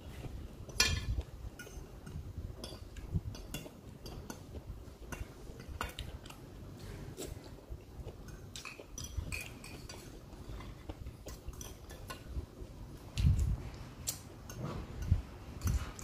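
Metal spoon and fork clinking and scraping on a plate in irregular light taps, with chewing in between.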